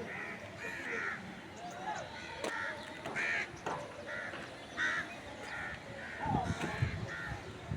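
A bird calling over and over in short repeated calls, about one to two a second, with a few low thuds about six seconds in.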